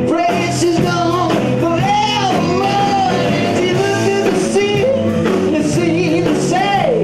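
Live three-piece rock and roll band playing: electric guitar, electric bass and drum kit, with a melody line bending up and down in pitch over the steady bass.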